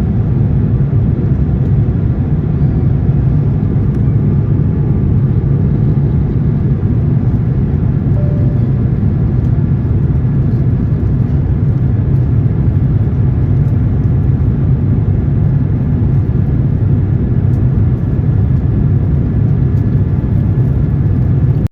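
Steady drone of an Airbus A350-900 heard from inside the passenger cabin: the Rolls-Royce Trent XWB engines and the airflow make an even, deep rumble that does not change.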